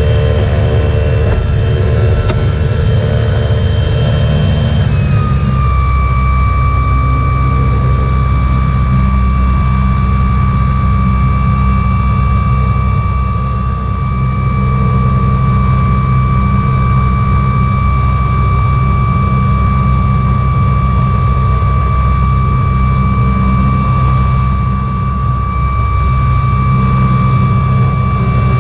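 Silent 2 Electro self-launching glider's electric motor and propeller running during the climb, heard from inside the cockpit: a steady whine over a low drone, the whine stepping down slightly in pitch about five seconds in and then holding.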